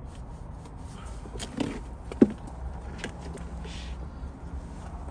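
A small hand ratchet working a threaded fitting out of a rubber air-intake elbow: scattered clicks and knocks, the loudest a sharp knock about two seconds in, over a low steady background rumble.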